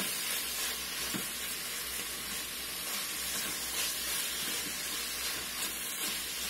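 Butternut squash, bacon and garlic sizzling steadily in the stainless steel inner pot of an Instant Pot on sauté, with a silicone spatula stirring and scraping through them. The sage and pepper are being toasted in the fat before deglazing.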